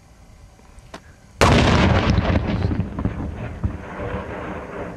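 A high-explosive charge detonating about a second and a half in: a sudden sharp blast, then a ragged rumble that slowly fades over the next few seconds.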